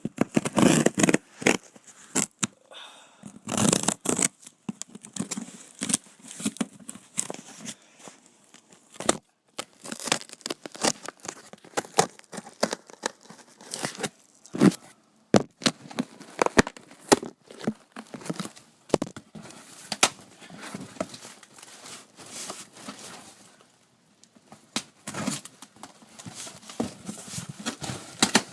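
Packing tape tearing and packaging crinkling as a box is opened and unpacked, in irregular bursts with many sharp clicks and scrapes.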